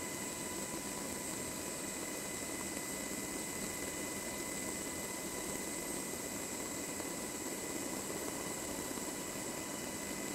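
Sikorsky HH-60G Pave Hawk's twin turboshaft engines and rotor drive running steadily, heard from inside the cabin: a constant rush with a steady high-pitched whine.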